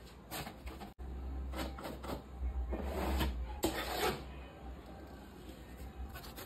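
Sheets of corrugated cardboard being handled, brushed and scraped against each other in bursts of rustling, busiest about three to four seconds in, over a steady low hum.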